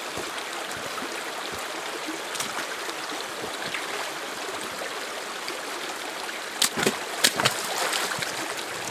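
Creek water running steadily, with a few sharp knocks about two-thirds of the way through.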